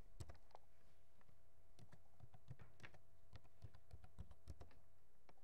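Computer keyboard being typed: a few keystrokes, then a quick run of about a dozen, and a last single key press near the end, over a faint steady hum.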